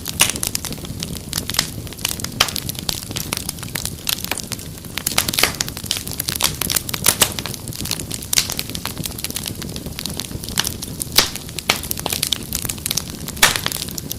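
Wood fire crackling: irregular sharp pops and snaps over a soft steady low rumble.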